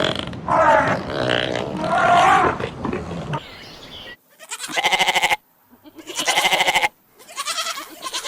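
Animal calls: a few seconds of continuous calling, then after a break three separate loud calls of about a second each.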